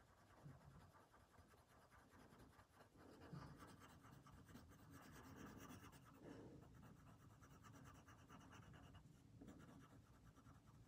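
Faint scratching of a colored pencil on paper as it shades in a small area.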